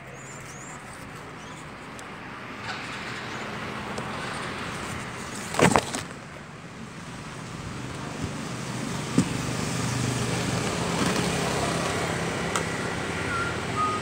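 A vehicle engine running steadily with a low hum, growing slowly louder, with a sharp knock a little before six seconds in.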